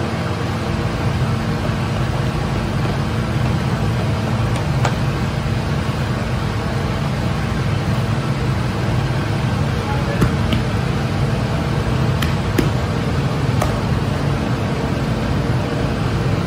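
A steady, low machine hum and rumble from bakery equipment, with a few faint taps.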